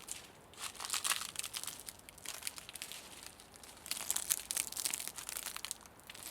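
Crisp crinkling and crackling in two spells, starting about half a second and about four seconds in, each lasting one to two seconds.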